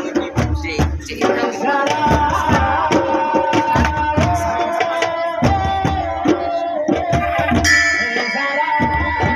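Music with a steady hand-drum beat under a held, wavering melody line; brighter high tones join near the end.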